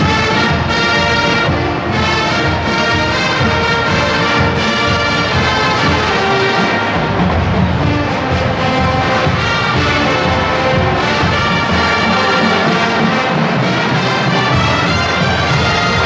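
Marching band playing, brass carrying the tune over the drums.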